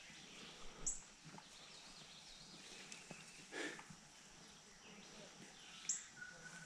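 Quiet outdoor ambience with two short, high chirps, one about a second in and one near the end, and one brief, louder animal call about halfway through.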